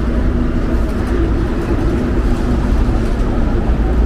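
Street traffic: vehicle engines running with a steady low rumble and a faint engine hum, with no single event standing out.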